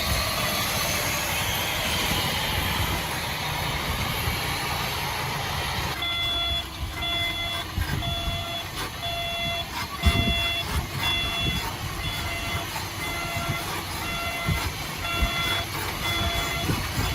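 Heavy earthmoving machinery rumbling; about six seconds in, a reversing alarm starts beeping steadily about twice a second. A single sharp knock sounds about ten seconds in.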